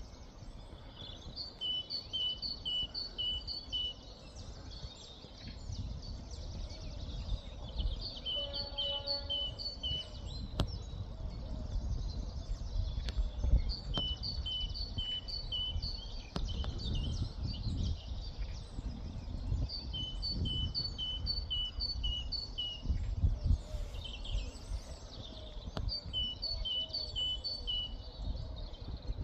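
A songbird repeatedly singing the same short phrase of alternating high and low notes, about every six seconds, over a low, uneven rumble.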